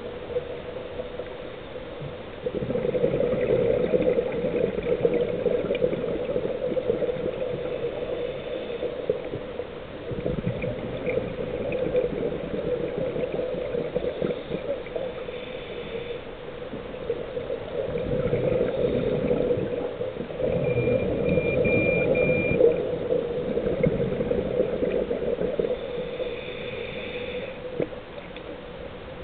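Underwater scuba bubbles from divers' regulators, a gurgling, bubbling rush that swells for several seconds at a time and dips between breaths. A short run of faint high beeps comes about two-thirds of the way through.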